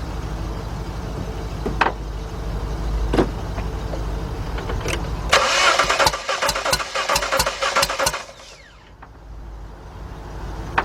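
Starter cranking the Jeep Liberty's 3.7-litre V6 for about three seconds with its ignition coils disconnected, an even fast chug of about five compression strokes a second, during a compression test; the engine does not fire and the cranking stops suddenly. Before it, a steady low hum with a couple of light clicks.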